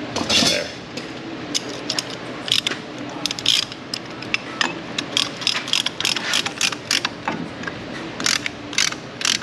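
Ratcheting brake caliper piston compressor clicking stroke by stroke as it pushes a caliper piston back into its bore. The clicks are uneven, a few a second, coming faster in the second half.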